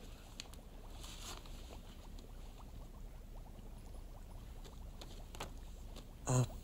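Quiet room ambience with a few soft rustles and light clicks.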